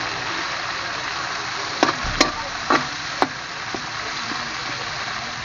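Onion, tomato and chili sizzling in hot oil in a metal wok while a metal spatula stirs them, with about five sharp clanks of the spatula against the wok around the middle.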